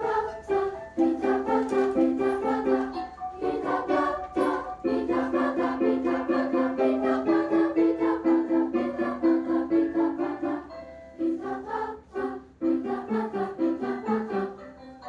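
Music: a song sung with piano accompaniment, with sustained sung notes over the piano.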